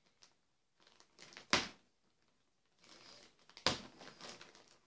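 A plastic mailer bag being handled and pulled open by hand: crinkling, rustling plastic in bursts, with two sharper cracks, one about a second and a half in and another about two seconds later.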